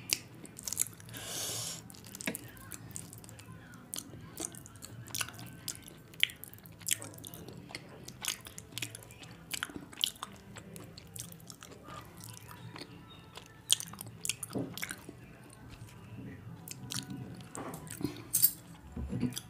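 Close-miked eating: a person chewing a mouthful of rice and fish curry, with many short wet smacks and clicks of the lips and mouth.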